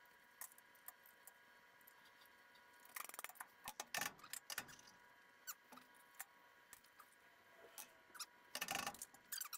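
Faint, scattered clicks, taps and light rattles of metal scooter parts being handled while the scooter is taken apart, with small clusters about three and four seconds in and again near the end, over a faint steady hum.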